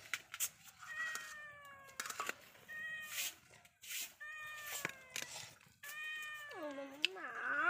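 A domestic cat meowing several times, each call falling in pitch, with a few short clicks between the calls.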